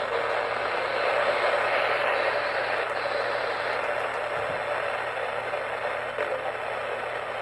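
Steady radio static: an even, band-limited hiss from a radio receiver during dead air between announcements.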